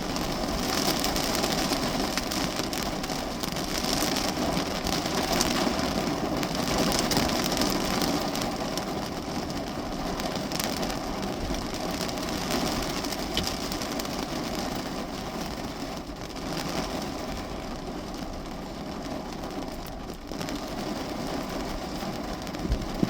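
Steady rain on the roof and windows of a parked car, heard from inside the cabin. It eases slightly in the second half.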